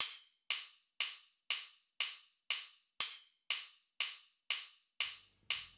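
Metronome count-in at 120 beats per minute: twelve short clicks, one every half second. The first and seventh clicks are louder, marking two bars of 6/8.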